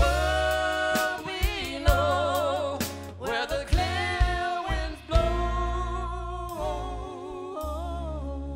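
Live band playing a slow song: sung vocals holding long notes with vibrato over acoustic guitar, upright double bass and drums, with a few sharp drum and cymbal hits.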